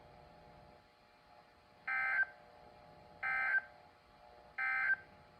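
Emergency Alert System end-of-message signal: three short, identical buzzy digital data bursts (SAME code) about 1.3 seconds apart, marking the end of the alert message.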